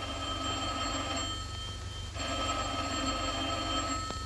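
Desk telephone bell ringing: two long rings with a short gap between them, the second starting about two seconds in.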